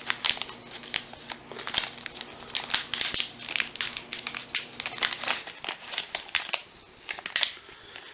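Crinkling and rustling of a small paper-and-plastic product packet as it is unwrapped by hand and the pen inside is pulled out. It comes as a quick string of short crackles that die away about seven and a half seconds in.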